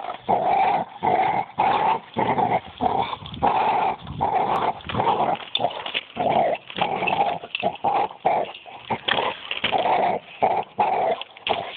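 A dog barking and growling over and over in short loud bursts, about one to two a second.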